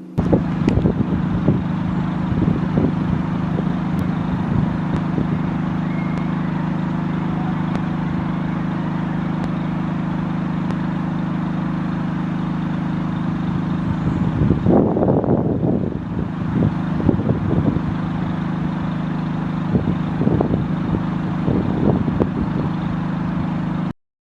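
An engine running steadily with a constant low hum, with some louder irregular noises about fifteen seconds in. The sound cuts off suddenly near the end.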